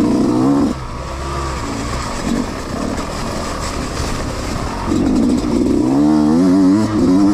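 Yamaha YZ125X two-stroke dirt bike engine revving under the rider's throttle: a loud burst at the start, easing off in the middle, then a wavering run of revs climbing in pitch for the last two seconds.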